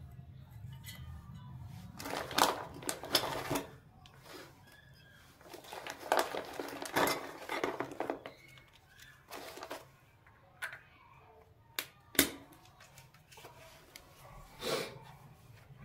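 Miniature stainless-steel toy pots and bowls clinking and tapping as they are handled and set down, with plastic packaging rustling. The sounds come in irregular clusters of clicks and short rattles, with one sharp click about twelve seconds in.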